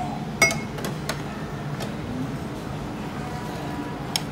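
Sharp clinks of a metal ladle against the steel steamboat pot and a plastic serving dish as vegetables are pushed into the broth. The loudest clink comes about half a second in, a few lighter ones follow, and another comes near the end, over a low steady background hum.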